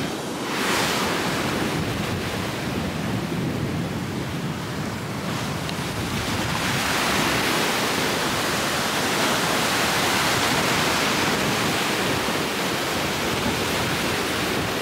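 Ocean surf breaking and washing in, a steady rush that swells in the middle, mixed with wind on the microphone.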